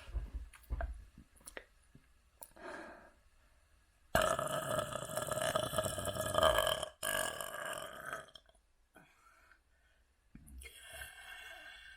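Deliberate, drawn-out human burps. A long loud burp starts about four seconds in and lasts about three seconds, followed at once by a shorter one, and a quieter burp comes near the end.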